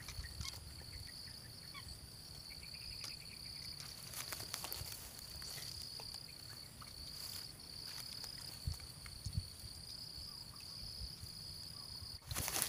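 Insects chirring steadily in one high-pitched, slightly pulsing drone. A few soft rustles and knocks from grass and gear, the loudest near the end.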